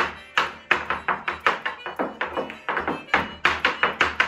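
Irish dance hard shoes striking a wooden dance board in quick rhythmic clicks, about four or five a second, over faint backing music.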